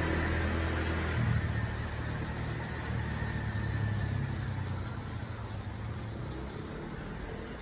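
City outdoor ambience: wind mixed with a low traffic rumble that fades gradually.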